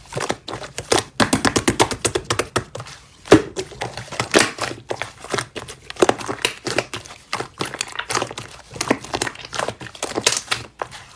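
Slime being squished and poked by hand: dense, irregular runs of small clicks, pops and crackles.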